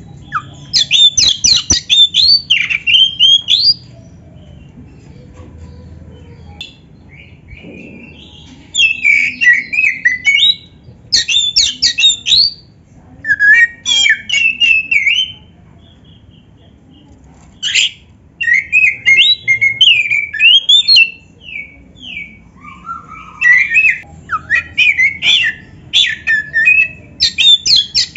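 Black-breasted Oriental magpie-robin singing loudly in repeated bursts of rapid chirps, whistled glides and harsh clicking notes. Each burst lasts one to four seconds, with short pauses between.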